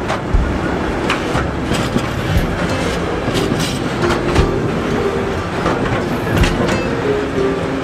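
Freight train of tank wagons rolling past close by, the wheels clicking over rail joints in a repeated beat. A steady higher tone joins about halfway through.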